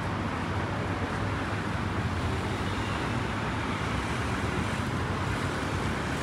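Steady road traffic noise from cars driving along a multi-lane city avenue.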